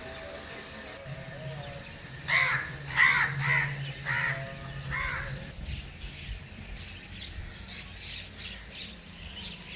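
A crow cawing about five times in quick succession, short harsh calls. Light clicks and scrapes follow in the second half.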